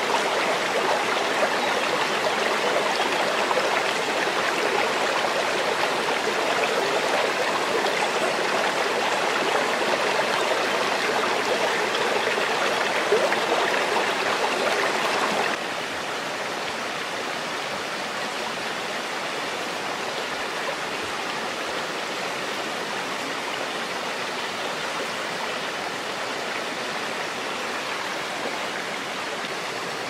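Shallow rocky stream flowing over stones: a steady wash of running water. About halfway through it drops suddenly to a quieter level.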